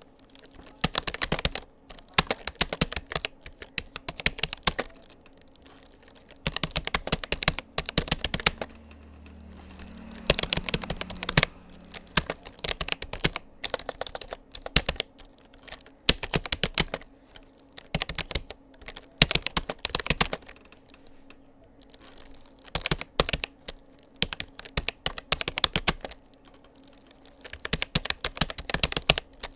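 Touch-typing on a Rapoo computer keyboard: fast runs of key clicks in bursts of a second or two, with short pauses between them.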